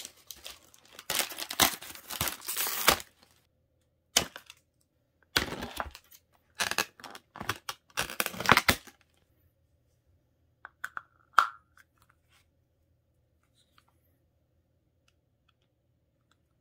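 Cardboard and clear plastic toy packaging being pulled apart by hand, in bursts of crinkling and tearing over the first nine seconds or so. After that it goes quiet except for one sharp click about eleven seconds in.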